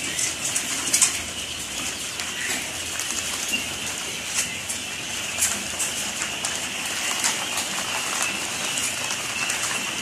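A dense chorus of many young poultry chicks peeping together in a brooder, a steady unbroken mass of high chirps.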